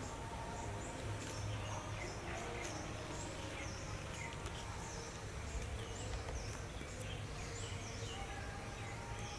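Woodland ambience: many short, high chirping calls falling in pitch, from small birds, over a steady low rumble.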